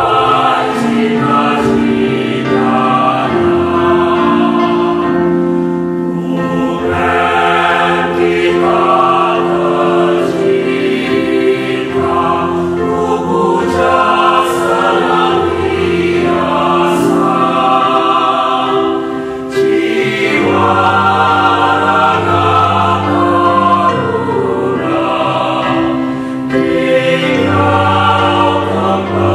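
Choir singing an Indonesian hymn, long held notes with brief breaks between phrases.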